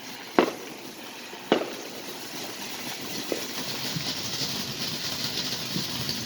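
Consumer fireworks going off: two sharp bangs about a second apart, then a hissing crackle that grows louder over the following seconds.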